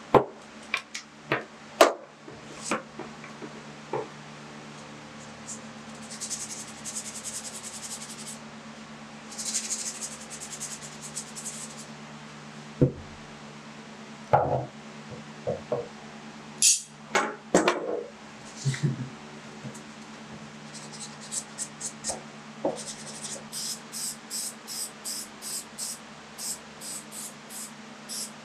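Wooden parts and clamps knocked and set down on a workbench: scattered sharp taps and knocks, with two short stretches of scraping hiss in the first half. Near the end, a spray can of polyurethane is shaken, its mixing ball rattling in quick, even bursts about three times a second.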